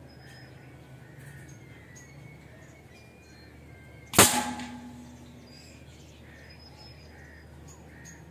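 A single shot from a P10 air gun fitted with a suppressor, firing a 21-grain slug: one sharp crack about four seconds in that dies away over about a second with a short ring. Crows call in the background.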